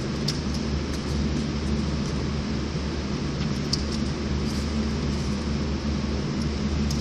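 Steady mechanical hum of an indoor shooting range's ventilation, with a couple of faint clicks; no shots are fired.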